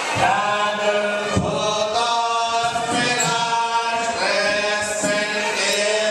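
Devotional chanting in long, sustained sung phrases, accompanying a Hindu flower abhishekam ritual.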